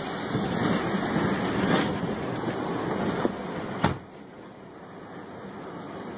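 Tornado wind rushing and buffeting a truck, heard from inside the cab, with a few small knocks. A sharp knock comes about four seconds in, after which the rush is quieter.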